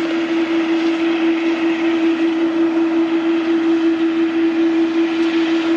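Boeing 787 jet engines running at taxi power as the airliner rolls past: one steady tone over an even rushing noise.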